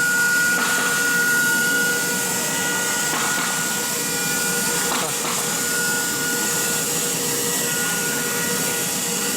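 Blue Elephant CNC router running steadily, a high, even whine over a constant rushing noise as it machines.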